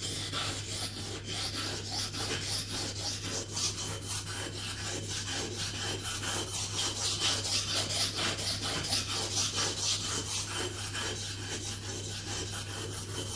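Scandi-ground carbon-steel blade of a Mora Bushcraft Black knife being stroked back and forth on a wet whetstone, a steady run of quick, even rasping strokes as the stone removes steel from the edge.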